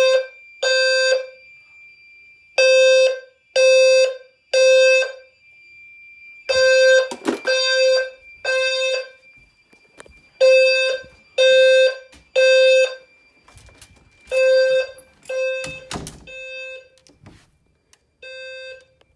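Fire alarm sounding the temporal-three evacuation signal: loud, low-pitched beeps in groups of three, about a second apart, with a pause after each group. A couple of short knocks come in between.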